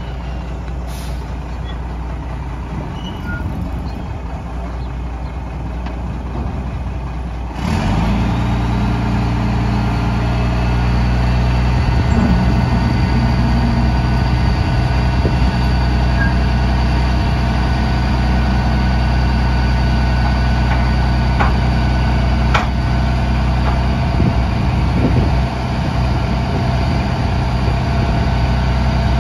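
Mack RD roll-off truck's diesel engine running while its hoist pulls a roll-off dumpster up the tilted frame. About eight seconds in the engine steps up to a higher, louder, steady speed to drive the hoist, with a steady whine over it and a couple of sharp clicks later on.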